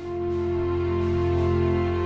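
Background music: a slow, held chord over a deep bass note, changing to a new chord right at the start and then sustained.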